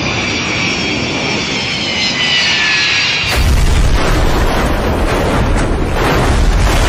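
Boeing 727 jet engines whining, their pitch falling, then about three seconds in a sudden loud heavy rumble as the airliner hits the ground and slides through desert sand.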